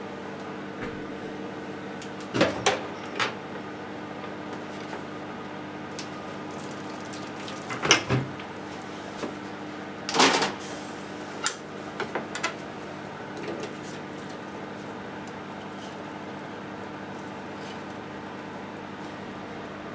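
Short clatters and knocks of a wire skimmer and utensils against a stainless-steel sink, with brief splashes as hot water is poured over a block of deep-fried tofu, over a steady background hum.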